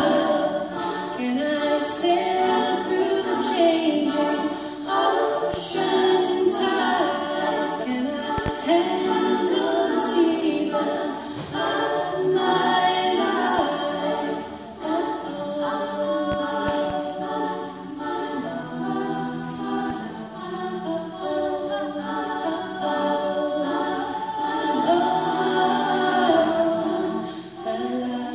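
Female a cappella group singing: a woman's solo voice on a microphone carries the melody over sustained backing harmonies from the rest of the group.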